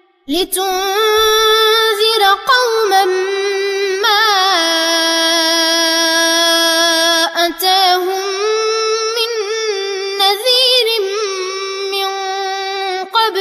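A young reciter chanting the Quran solo in melodic tajwid style, Warsh narration, starting after a brief breath pause and drawing out long held notes with wavering ornaments.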